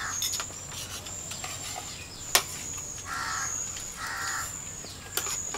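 A crow cawing twice, two harsh calls of about half a second each a little past halfway, over a steady high thin whine. A single sharp click comes about two and a half seconds in.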